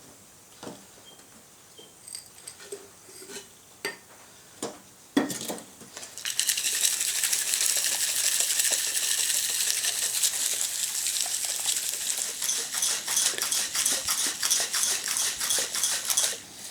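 Satanite refractory mortar being mixed in a container: a few scattered taps and clinks, then from about six seconds in a loud, continuous, rapid scraping that runs for about ten seconds.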